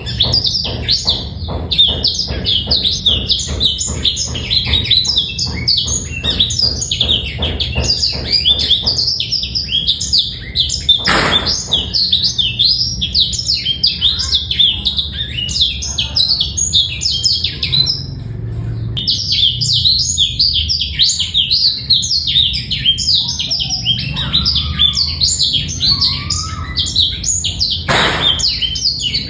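Male blackthroat (black-throated canary) singing a long, fast, clear twittering song without harsh rattles. The song breaks off briefly about two-thirds of the way through and then goes on.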